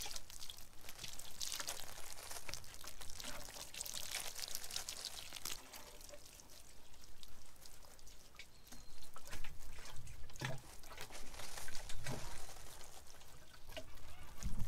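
Water spraying from the rose of a plastic watering can onto loose bare soil: a steady spattering hiss that eases off briefly near the middle, with a few dull low thumps in the second half.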